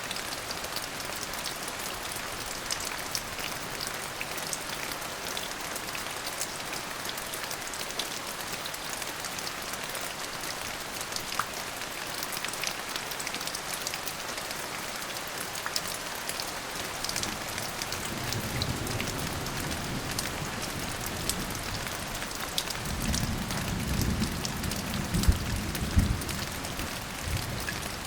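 Steady rain falling, with scattered sharp drops tapping on a surface. Thunder rumbles low a little over halfway through, and a longer, stronger roll with a few cracks comes near the end.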